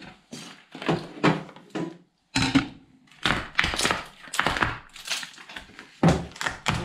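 White plastic cable trunking being prised and ripped off a plastered wall by hand. It gives a run of irregular cracks, snaps and scraping knocks as the plastic and the plaster holding it break away.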